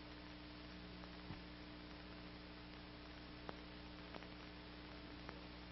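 Very quiet steady hum and hiss with a few faint clicks: the background noise of an old film soundtrack.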